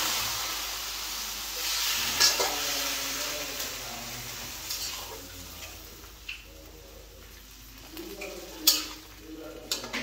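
Food frying in a pan: a sizzle that fades over the first few seconds, then a spoon stirring and scraping in the pan, with a few sharp clinks, the loudest near the end.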